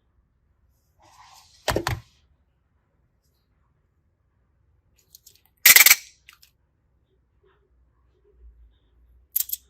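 Three brief, sharp clacks of small hard objects being handled or set down, the loudest about midway, with a quiet pause between each.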